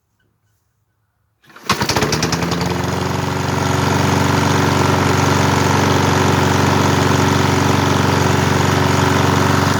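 A John Deere lawn mower's engine is pull-started cold after five months standing, primed three times. It catches on the first pull about a second and a half in, then runs steadily.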